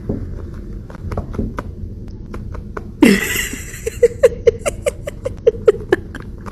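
A person laughing in short, sharp bursts, about five a second, over the last few seconds. About three seconds in, a sudden loud sound falls in pitch, and a low rumble of handling noise runs underneath.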